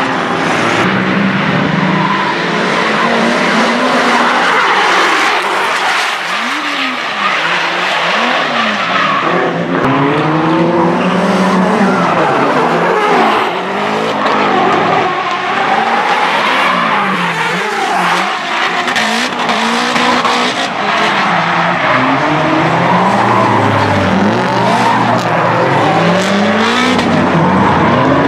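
Two Nissan Silvia drift cars running in tandem, their engines revving up and down over and over while the tyres squeal and skid through the corners.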